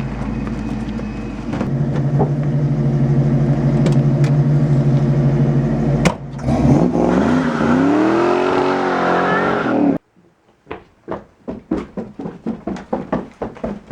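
Vehicle engine running steadily, getting louder about a second and a half in, then a click and a wavering whine that rises and falls. It cuts off abruptly, followed by a run of short knocks, about three a second.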